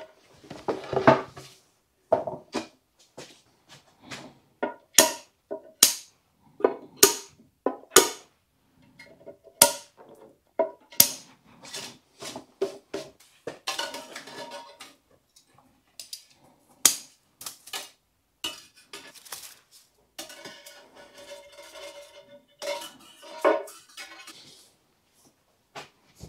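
Irregular clinks and taps of metal tools and wire against a bonsai pot as pot mesh and tie-in wires are fitted into it. A few louder strikes ring briefly.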